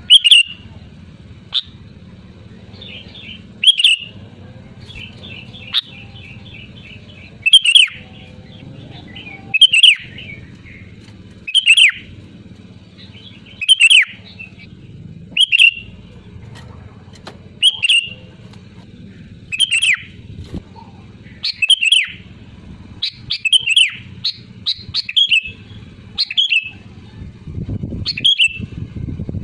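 Sooty-headed bulbul (kutilang) calling loudly: a short bright call repeated about every two seconds, coming faster near the end, over a faint low hum.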